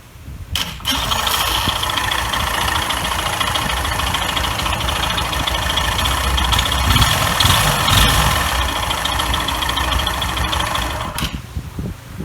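KYMCO Racing G4 scooter's single-cylinder engine starting about a second in and running for about ten seconds, a little louder in the middle, then shut off suddenly near the end.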